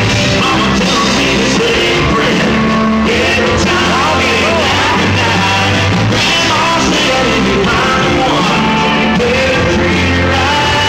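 Live country band playing loud, with a man singing lead over acoustic and electric guitars, bass and drums, heard through a phone's microphone from the crowd.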